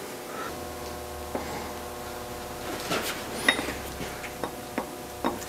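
A few light metal clicks and taps as a bearing on its install tool is handled and set against the lathe headstock's bearing bore, over a steady low hum.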